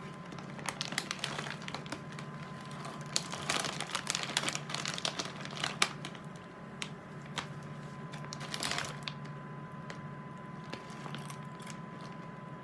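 Crinkling of a pretzel snack bag as a hand rummages in it: irregular crackles that come in bunches, thickest a few seconds in, with another bunch near the end.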